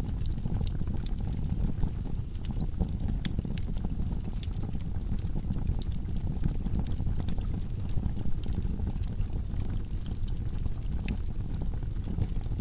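Log fire burning in a fireplace: a steady low rumble of flames with frequent sharp crackles and pops from the burning wood.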